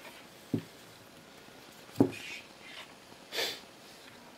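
Handling noises as a 140 mm PC case fan and its cable are moved and set down on a cloth-covered table: a soft knock about half a second in, a sharper knock about two seconds in, then a brief hiss-like noise. The fan is not yet running.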